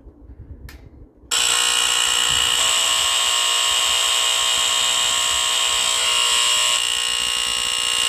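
Gentex GX-100-1A smoke detectors' Edwards electromechanical vibratory horns sounding on test: a loud, steady low buzz with a harsh, rich edge, starting about a second in after a few faint clicks from the test knobs. The buzz thickens a second or so later, as if a second horn joins, and thins again near the end.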